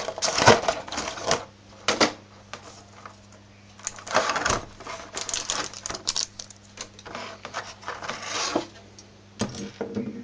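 Packaging being handled as a die-cast model airliner is taken out of its box: irregular rustling and small clicks, in bursts with short pauses.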